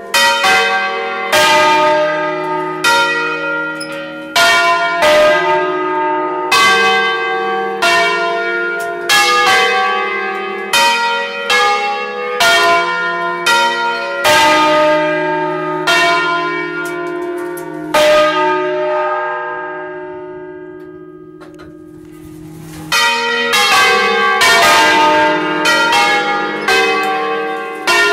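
The five-bell ring in E-flat cast by Achille Mazzola of Valduggia in 1951, swung by electric motors and striking a solemn peal, heard close up from inside the belfry. About 18 seconds in the strokes stop and the ringing dies away, then the bells start striking again about five seconds later.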